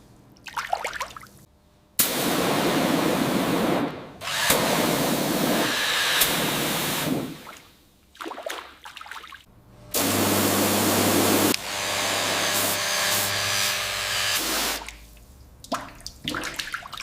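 A run of short, abruptly cut workshop noises: a steady hissing rush stops and starts several times, a small motor hums for a couple of seconds about ten seconds in, and quieter scraping and rubbing fills the gaps.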